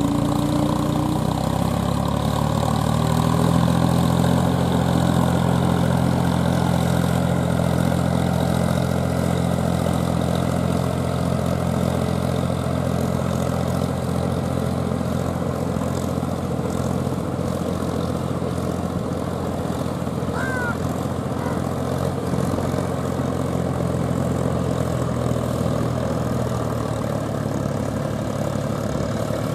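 Mahindra 475 DI tractor's four-cylinder diesel engine running steadily as it drags a roller leveller through paddy mud.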